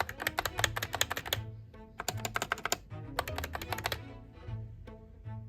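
Fast typing on a computer keyboard fitted with handmade polymer clay keycaps, a tap test to check the keycaps for abnormalities: three quick runs of key clicks over the first four seconds, then the typing stops.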